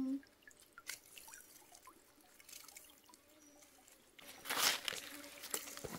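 Water dripping off a collapsible net fish trap as it is lifted from a stream, with scattered faint drips at first, then a louder rush of water pouring and splashing out of the net a little past the middle.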